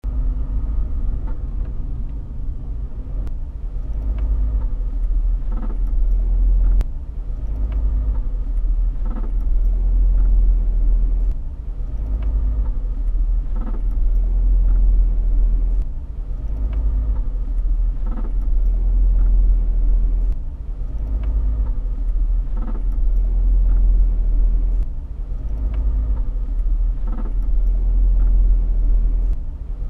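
A 2010 Outlander running with a deep, steady low drone that swells and eases every few seconds. Over it come short, sharp clicks every couple of seconds: the cracking noise that the owner cannot identify.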